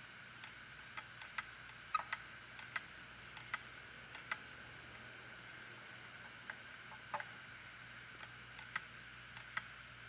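Opened failing hard drive running, with a steady whine from the spinning platters. Irregular sharp clicks come from the read/write head arm as a finger pushes it across the scratched platter. This is the clicking of a drive with a head crash.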